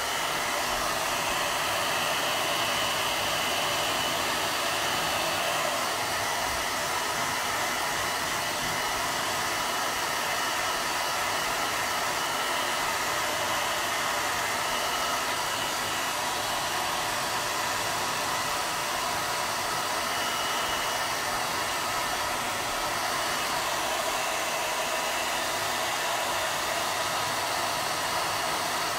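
Handheld electric hair dryer running steadily, a constant rush of blown air.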